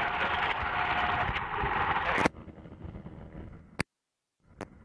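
Steady engine and airflow noise of the aircraft filming from the air, with a faint steady whine, cut off sharply about two seconds in. After it comes much fainter noise, a click, a brief moment of total silence and another click.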